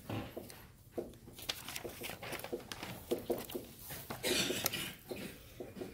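Marker writing on a whiteboard: a run of short, irregular scratching strokes, with a longer, louder stroke about four seconds in.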